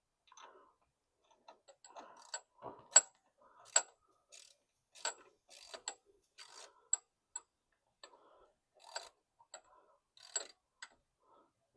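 Sharp metallic clicks of a wrench being worked back and forth on an alternator mounting bolt as it is tightened, roughly one click every half second to a second, at irregular spacing.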